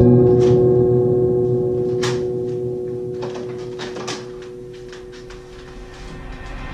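A low gong-like ringing tone slowly dying away, with a few soft footsteps and knocks partway through as someone walks across a wooden floor and sits down.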